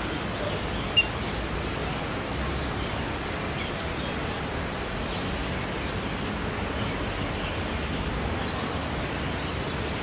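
Steady, even rush of running water in a garden pond, with a single sharp click about a second in.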